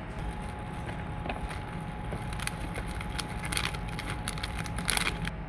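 Plastic sachet crinkling and rustling in the hands as it is opened and dried noodles are shaken out into a plastic tray, in short irregular crackles with a louder crackle near the end.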